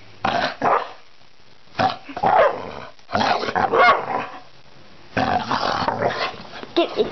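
Dog growling and barking in play, in four short bouts with brief pauses between them.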